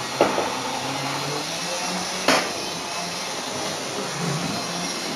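Two sharp plastic clicks as a model train is handled on the layout's track, the louder one a little past two seconds in, over a steady hiss.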